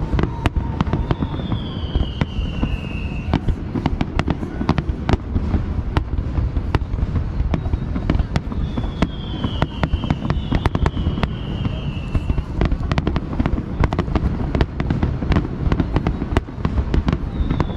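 Fireworks barrage: a dense, continuous run of booms and sharp cracks over a steady low rumble. A falling whistle sounds three times above it.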